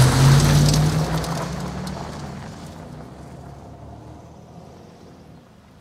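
An SUV's engine revving as it pulls away, its wheels spinning in loose soil and spraying dirt. The sound is loudest at the start and fades steadily as the car drives off, dying away after about four seconds.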